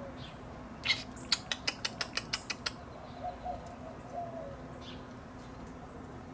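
A quick, even run of about nine sharp clicks, roughly six a second, starting about a second in and lasting under two seconds.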